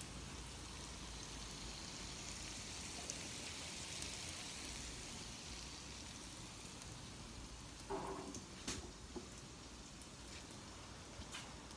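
Steady, quiet hiss of food sizzling on a flat-top griddle as an egg and shrimp fry in fat. A short soft knock comes about eight seconds in, followed by a few light clicks near the end.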